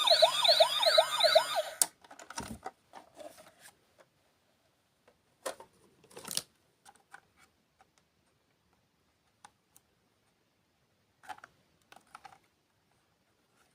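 An electronic siren wailing in quick rising-and-falling sweeps, about two a second, cuts off suddenly about two seconds in. Then a few scattered soft clicks and taps.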